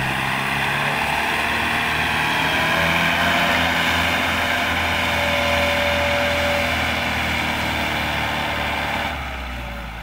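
Kubota M108S tractor's four-cylinder diesel engine running hard under load, pulling a loaded trailer through mud. The engine note is loud and steady, then eases off about nine seconds in.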